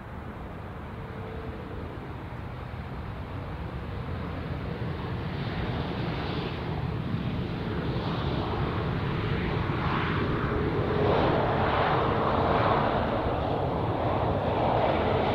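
Jet airliner on landing approach, its engine noise growing steadily louder as it nears. A steady tone rises out of the rumble about eleven seconds in.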